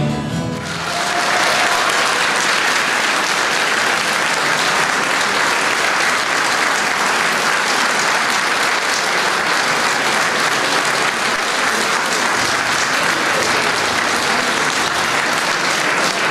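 A choir and band's final note dies away within the first second as a large audience breaks into steady applause.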